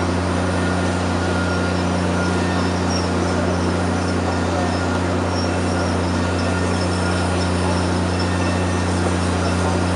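A passenger train rolling slowly, heard from the car's open vestibule: a steady low hum and rumble, with faint high thin tones coming and going.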